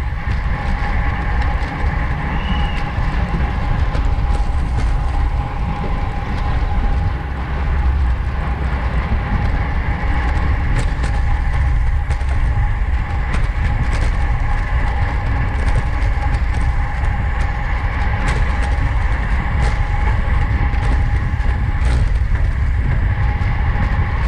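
Wind rushing over a bike-mounted camera's microphone at racing speed in a road-race pack, with a steady whir from the bicycles and scattered sharp clicks.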